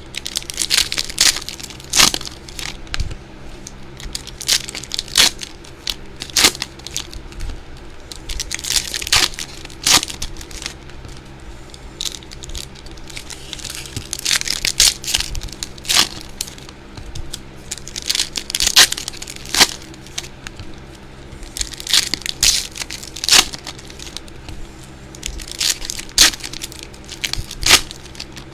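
Plastic wrapping on trading-card boxes being torn and crinkled by hand: irregular crackles and rustles.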